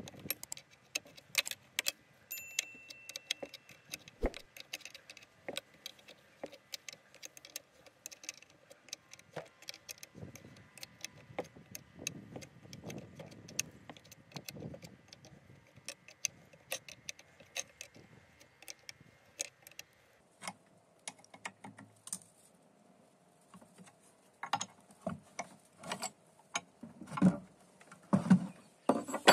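Open-end steel spanner clinking on the nuts and bolts of pillow-block bearing housings as they are bolted down to a steel base plate: a string of irregular light metallic clicks, with heavier knocks in the last few seconds.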